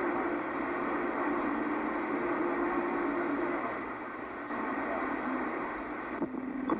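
CB radio receiver putting out a steady hiss of band static through its speaker, with a faint wavering tone from a weak, garbled signal for the first few seconds.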